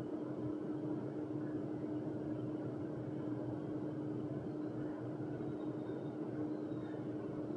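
A steady machine hum: an even rushing noise with one constant low tone, unchanging in level.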